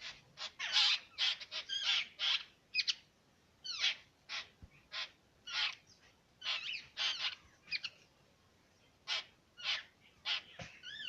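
Birds chirping: short, sharp chirps, several from more than one bird, coming a couple a second in irregular clusters.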